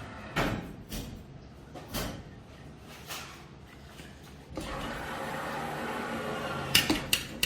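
Claw machine mechanism at work: a few knocks about once a second, then a steady motor whirr as the claw moves, ending in a quick run of sharp clicks and knocks.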